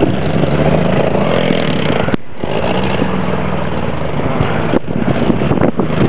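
Car engine revving hard and held high as the car struggles, stuck, to climb a snow-covered hill, the sort of strain the narrator warns will blow the motor. The sound drops briefly about two seconds in.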